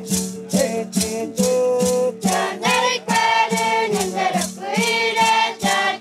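Guarani ritual song: hand rattles shaken in a steady beat about twice a second over a strummed guitar, with high voices singing together from about two seconds in.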